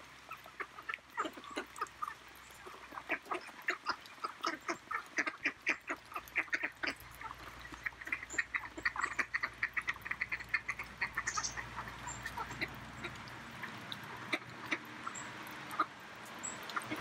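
Mallard ducks giving quick runs of short quacks, several a second.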